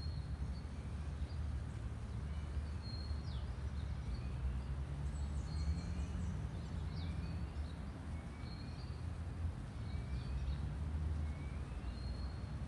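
Birds calling: short chirps and whistles, with one short rising note repeated every second or two, over a steady low rumble.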